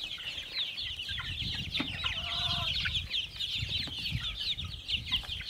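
A flock of young chickens peeping continuously, many short high downward-sliding chirps overlapping, with one brief lower call a little past two seconds in.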